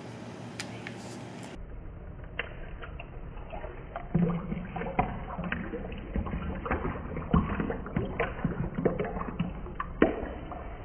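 Fresh lemon squeezed in a hand-held lemon press, its juice running and splashing into a stainless steel shaker tin: a string of irregular small clicks and wet splashes, busiest from about four seconds in.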